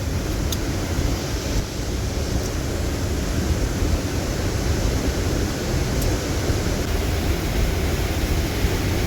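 Steady roar of a rushing mountain river in the gorge below.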